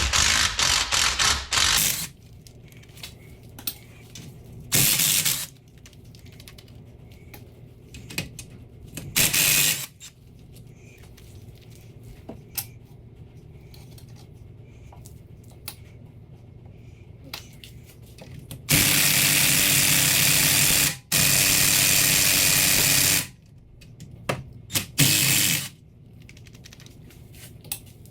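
A handheld power driver running in bursts as bolts are backed out of a rammer's guard: a quick stuttering run at the start, short bursts scattered through, and two longer steady runs of about two seconds each later on. Faint ticks and clinks of the tool and loose bolts come in between.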